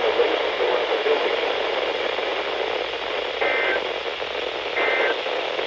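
Hiss of a radio receiver's static, broken about halfway through by two short warbling two-tone data bursts about a second and a half apart: the SAME end-of-message bursts that close an Emergency Alert System broadcast.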